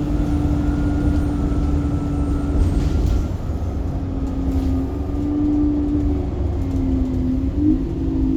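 Dennis Enviro bus running, with a low rumble and a steady whine that changes pitch after about three seconds.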